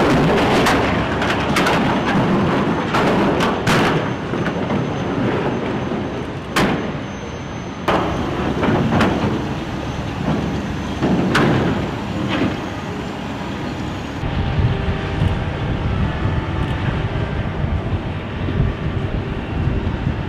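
Heavy salvage machinery working on wrecked steel bridge truss: a crane's hydraulic grapple banging and clanking against the twisted steel, over a running diesel engine. The sharp metal bangs come irregularly, about ten of them, and about two-thirds of the way through they give way to a steadier low engine drone.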